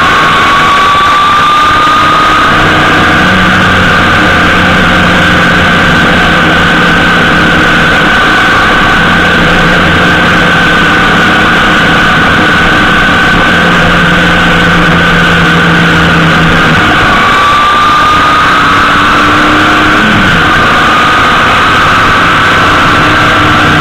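Honda GL1800 Gold Wing's flat-six engine running at road speed under a steady, loud rush of wind and road noise. Its pitch rises near the start and again about 17 seconds in as the bike picks up speed.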